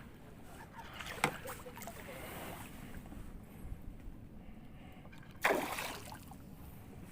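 Water lapping and splashing, with a sharp click a little over a second in and a louder splash about five and a half seconds in.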